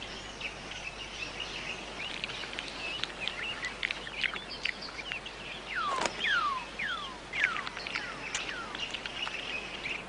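Birds chirping and calling, with a quick run of four or five downward-sliding whistled calls and a single sharp click about six seconds in.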